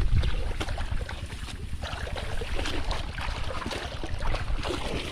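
Wind buffeting the microphone outdoors by a river, a steady low rumble, with scattered small splashes and clicks of water.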